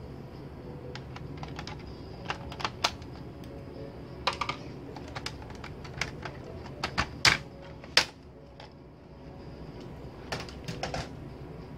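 Plastic snap-clips of a Compaq Presario CQ61 laptop's top case clicking as it is pried loose and lifted off the base: a scattered series of sharp plastic clicks, the two loudest snaps a little past the middle.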